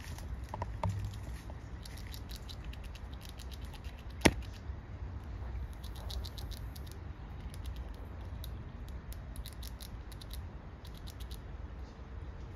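A red squirrel gnawing the hard shell of a black walnut with its teeth: rapid runs of fine scraping clicks coming in short bursts, with one sharp, loud crack about four seconds in.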